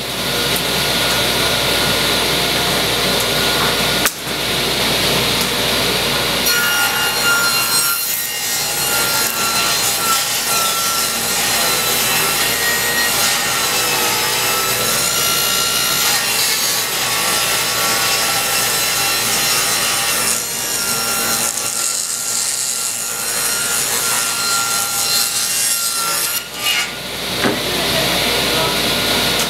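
Table saw ripping birch boards: the blade runs continuously and cuts through the wood in long passes, with short breaks between boards.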